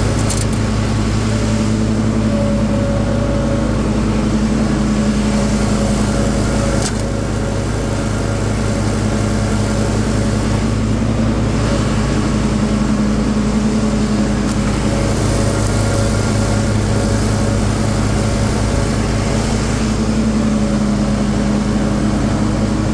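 Craftsman 42-inch zero-turn riding mower's 24-horsepower Briggs & Stratton engine running steadily while the mower drives with its cutting blades engaged. The engine runs smoothly, without knocking, squealing or vibration noises.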